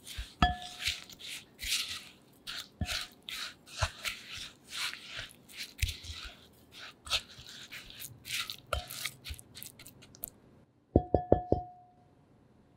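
A utensil scraping and crunching through crushed cookie crumbs in a bowl in a steady rhythm of about two strokes a second, with an occasional ringing clink against the bowl. After a short pause, four quick taps of the utensil on the bowl ring out near the end.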